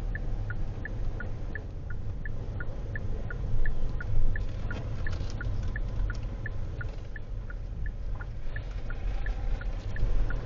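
Steady low rumble of a car cabin at crawling speed, with the turn indicator ticking in an even tick-tock about three times a second.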